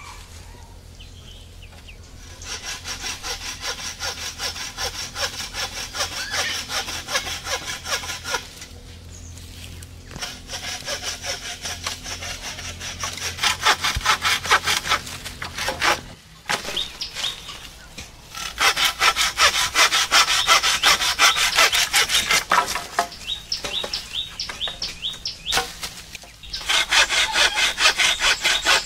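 Hand frame saw cutting through bamboo poles: runs of quick back-and-forth strokes, broken by a few short pauses.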